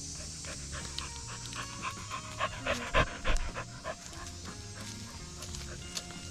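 A dog panting in quick breaths, loudest around the middle, over background music.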